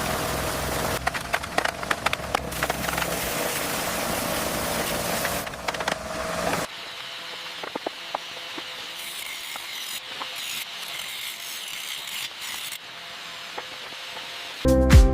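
Construction work noise: sawing-like rasping with scattered sharp knocks. About two-thirds of the way through it cuts abruptly to quieter tool clatter.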